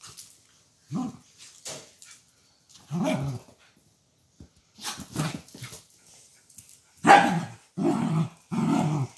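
Dachshund and another small dog play-fighting, growling and barking in short bursts, about six in all, the loudest three in quick succession near the end.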